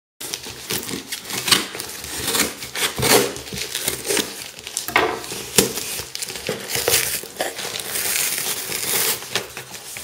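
Packaging crinkling and crackling as it is handled and pulled open, with many irregular sharp crackles.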